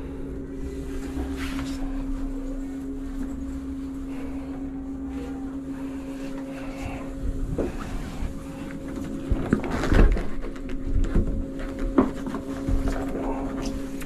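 A steady machine hum, with knocks and handling clatter starting about halfway in; the sharpest knocks come in the last few seconds.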